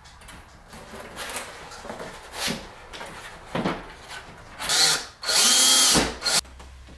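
Cordless drill run twice at the edge of a wooden picture frame: a short burst, then a longer one of under a second with a steady motor whine, about five seconds in.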